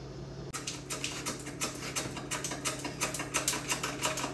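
Potatoes being sliced on a plastic mandoline slicer: quick, rapid scraping strokes across the blade, about six or seven a second, starting about half a second in. A low steady hum runs underneath.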